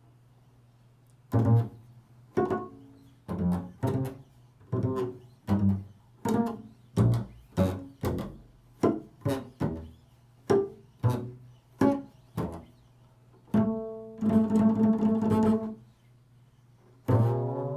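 Solo bass improvising: a run of single plucked notes, each struck and dying away, about one or two a second, stepping through different intervals. Near the end it gives way to longer held notes.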